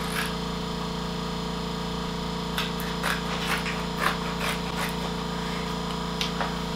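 Scissors trimming a sheet of heat-transfer vinyl: short, sharp snips coming irregularly, about nine of them, over a steady low hum.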